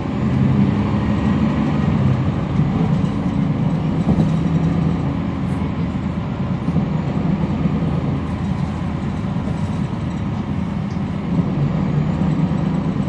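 Cummins ISL9 diesel engine of a 2011 NABI 40-SFW transit bus running, heard from on board: a steady low drone with a faint steady high whistle above it.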